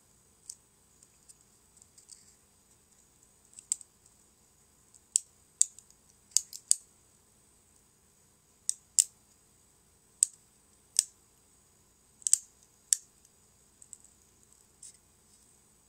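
Small sharp snaps and clicks, about a dozen at irregular intervals, as a hot knife cuts thin support struts away from a 3D-printed model part.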